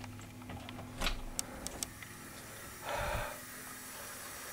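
Doorknob turned and the door latch clicking open about a second in, followed by a few small clicks. A short rush of noise comes about three seconds in.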